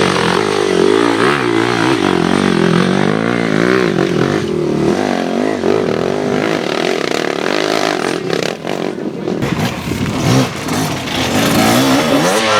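Enduro motorcycle engine revving up and down with the throttle, its pitch wavering constantly. A sharp knock comes about ten seconds in.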